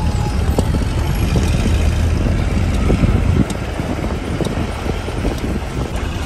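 Open jeep's engine running as it drives, with wind buffeting the microphone. The level drops and the rumble changes about three and a half seconds in.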